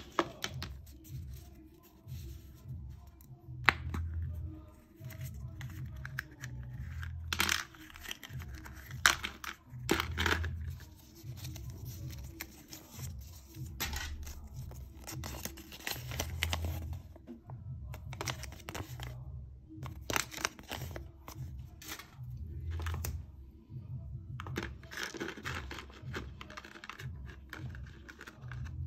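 Crinkling and tearing of a small paper toy leaflet and sharp clicks of a plastic surprise-egg capsule and toy parts being handled, as scattered crackles throughout. Background music with a steady low pulse runs underneath.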